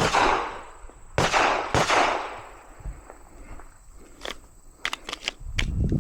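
Handgun shots echoing across an outdoor range: three loud shots with long echoing tails in the first two seconds, then a quicker string of fainter shots from about four seconds in.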